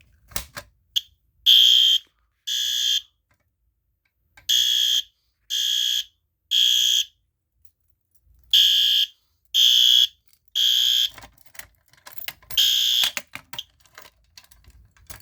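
System Sensor P2R horn strobe sounding the code-3 temporal pattern: groups of three half-second high-pitched blasts with a pause between groups. The horn was set off by pulling down a Simplex pull station, and there are small clicks of the station's handling before the horn starts and after it stops, near the end.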